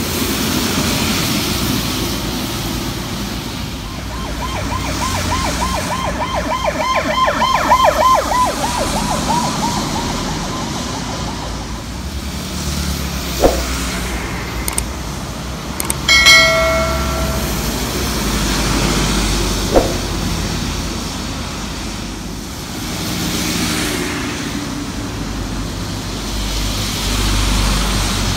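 Traffic passing on a rain-wet highway, with steady tyre hiss and engine noise from coaches and trucks. From about four seconds in, a fast warbling, siren-like yelp sounds for roughly six seconds. About sixteen seconds in a vehicle horn gives one loud blast of about a second, and two very short toots come before and after it.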